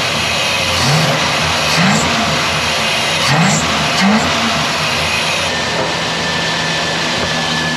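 Chevrolet V8 in an old Silverado pickup running steadily at idle, its lost spark cured by a replacement distributor.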